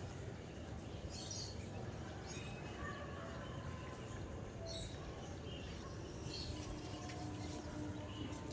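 Birds chirping in short, scattered calls over a low, steady outdoor rumble.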